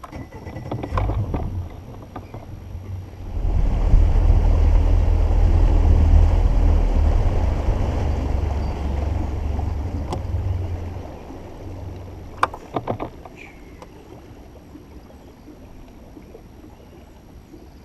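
Fishing boat under way, with a low rumble and wind buffeting the microphone. It builds about three seconds in and dies away after about eleven seconds, and a few sharp knocks follow.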